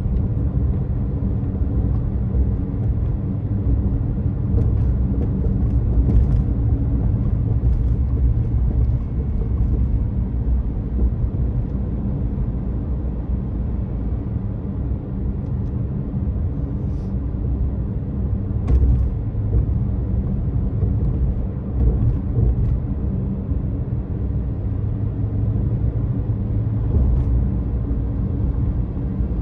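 Steady low rumble of a car on the move, engine and tyre noise heard from inside the cabin, with a few faint scattered clicks and knocks.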